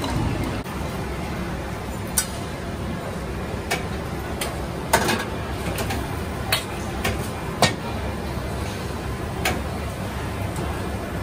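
Metal pots and a wok clanking sharply now and then, about eight separate knocks, over a steady rushing background noise.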